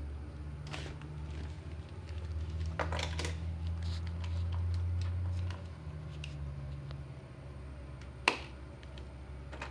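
Scattered light plastic clicks and clacks of a Hot Wheels toy car and playset being handled, the car pushed along the plastic track and into the launcher tower, with one sharper click about eight seconds in. A low hum runs underneath, swelling in the middle and dropping back about five and a half seconds in.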